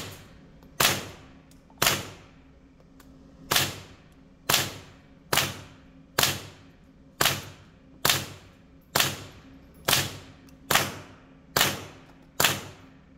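Semi-automatic HK416 .22 LR rifle fired through a YHM Phantom 22 suppressor: about sixteen sharp shots, roughly one a second at an uneven pace, each ringing off the walls of an indoor range. The magazine holds supersonic .22 LR rounds first, then subsonic ones.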